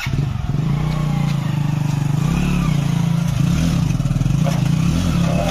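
Hero Splendor motorcycle's single-cylinder engine held at high revs under heavy load as the bike is ridden up concrete steps, its note wavering slightly.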